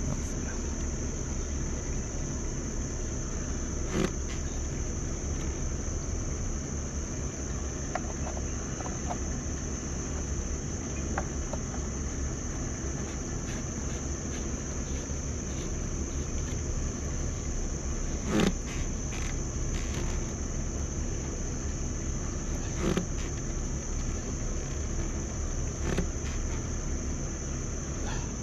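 Steady high-pitched insect drone over a low outdoor rumble. A few sharp clicks come from the red plastic Johnson 2200 bilge pump as its housing is pressed and twisted into place by hand.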